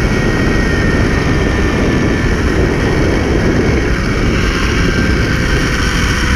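Wind rushing hard over a GoPro's microphone as it rides a zip line at speed, with a faint thin whine from the trolley's pulleys running along the steel cable, its pitch slowly falling as the ride slows toward the landing.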